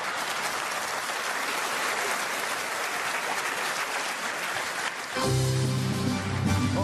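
Theatre audience applauding. About five seconds in, music with a steady low bass starts over the clapping.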